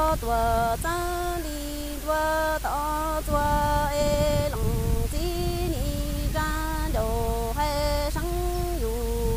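A woman singing kwv txhiaj, Hmong sung poetry, unaccompanied. She holds long notes that step between a few pitches, with short breaks between phrases, over a faint low hum.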